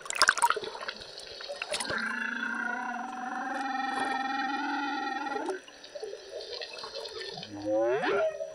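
Humpback whale song heard underwater: a long, steady, many-toned moan of nearly four seconds, then a short upward-sweeping whoop near the end. Splashy water crackle at the start.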